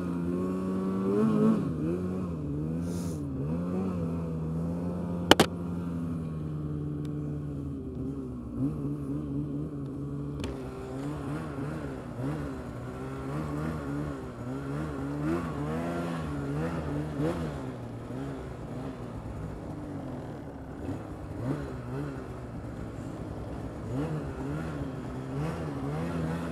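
Polaris Pro S 800 snowmobile's two-stroke twin engine running under a rider, its pitch rising and falling again and again as the throttle is worked. A single sharp knock about five seconds in.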